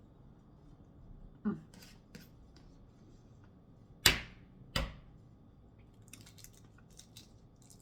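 Tabletop eating sounds: two sharp knocks a little past halfway, the first the loudest, then a run of light clicks and taps of utensils and dishes.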